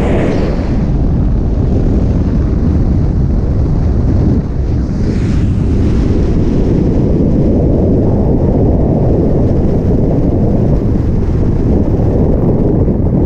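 Skydiver's freefall wind rushing over the camera microphone, a loud steady roar of air. It swells briefly and sounds hissier right at the start and again about five seconds in.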